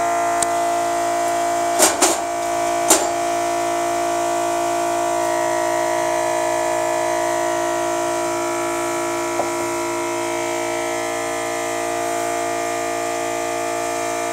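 A small motor-driven insecticide sprayer running with a steady buzzing hum while residual insecticide is applied. A few sharp clicks come through it, mostly around two to three seconds in.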